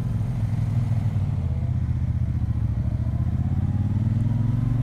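2018 Triumph Bonneville Speedmaster's 1200 cc parallel-twin engine running under way, heard from the rider's seat. The engine note holds steady, then climbs steadily through the second half as the bike accelerates.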